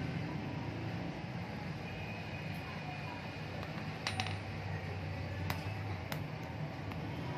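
A small brass knife-guard piece clinks down onto a steel anvil block about four seconds in, followed by two or three light hammer taps on the block, over a steady low hum.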